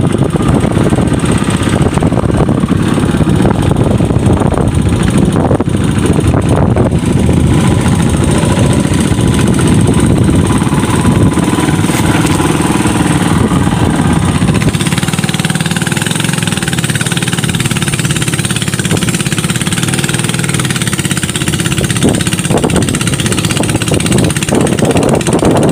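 Small petrol long-tail boat engine running steadily as the boat moves under way, with spray from the propeller wash.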